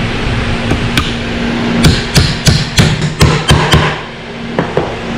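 Hammer driving nails through a wooden strip into a plywood board: a run of about seven quick blows starting about two seconds in, then two lighter taps.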